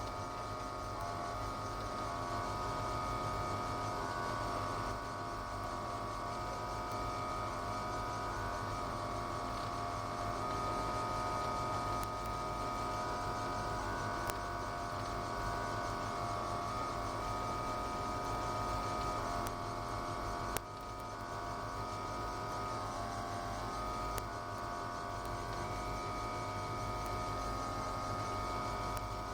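Ford GT40's engine running at a steady speed, heard from inside the car: an even drone of several held tones that barely changes, with a brief dip about two-thirds of the way through.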